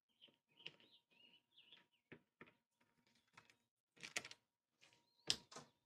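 Faint scattered clicks and light knocks, the loudest about four and five seconds in, with a few faint short high squeaks in the first two seconds: a screwdriver and hands working the screws and clips of the generator's side panel.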